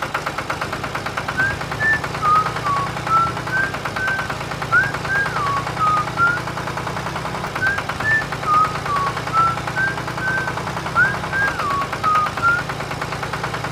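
Small engine running with a fast, even rattle. Over it, a short tune of high, whistle-like notes plays twice.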